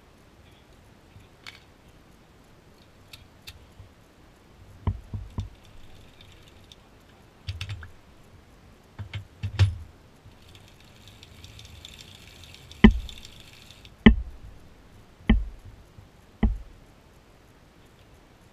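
Metal parts of a circular sock knitting machine being handled: scattered light clicks and knocks, then four sharp knocks about a second apart near the end.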